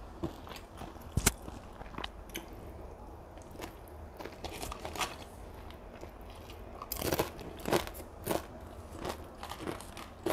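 Close-up eating of fried flat rice noodles and a crispy fried cracker: chewing with scattered sharp crunchy bites, one louder bite about a second in and a quick run of loud crunches around seven to eight seconds in.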